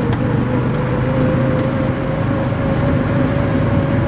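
ATV engine running steadily during a ride, a low rumble with a steady whining tone over it.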